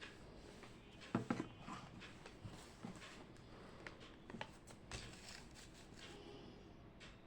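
Faint handling sounds at a desk: a few light taps and rustles of paper and small objects over a quiet room background. The loudest is a short cluster of knocks about a second in.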